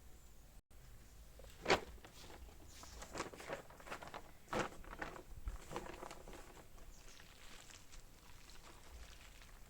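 Footsteps and scuffing, with scattered light knocks and two louder sharp knocks about two seconds and four and a half seconds in.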